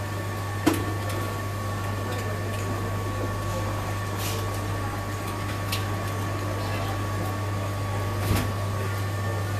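Steady low electrical hum with a faint high whine from machinery at a butcher's counter, with a few light knocks and clicks from work at the counter.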